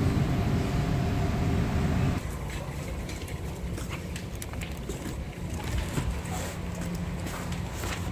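A steady low rumble with a faint hum, which drops off abruptly about two seconds in. Then light clicks and crinkles as a hand touches and handles plastic-wrapped cracker tins in a cardboard display.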